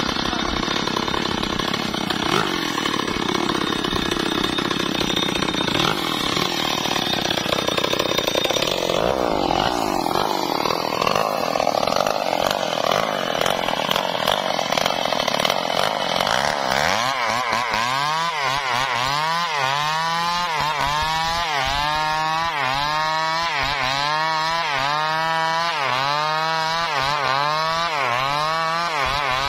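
Two-stroke chainsaw cutting through teak logs under load. In the second half its engine pitch swings up and down about once a second as it works through the cut.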